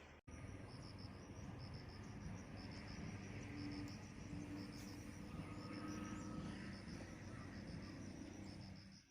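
Insects chirping faintly: high-pitched short pulses in quick groups, repeating about once a second, over a low steady background rumble.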